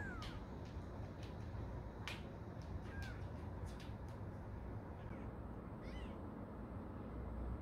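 Young kitten mewing: a few short, high-pitched mews, one near the start, one about three seconds in and one around six seconds, with scattered light clicks over a steady low hum.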